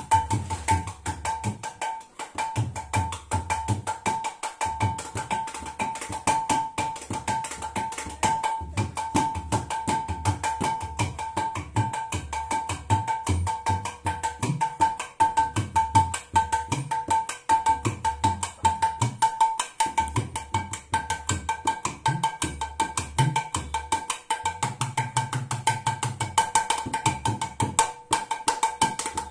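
A mridanga, the two-headed barrel drum, played with both hands in a fast, continuous rhythm. Sharp ringing strokes on the small treble head carry a steady pitched ring, mixed with deep bass strokes on the large head, and a longer held bass tone comes about twenty-five seconds in.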